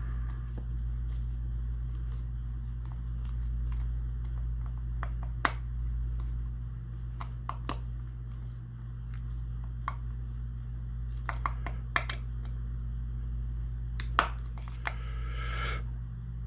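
Screwdriver and small screws being fitted into a side-by-side shotgun by hand: scattered sharp clicks and light metallic taps, with a short rasping scrape near the end, over a steady low hum.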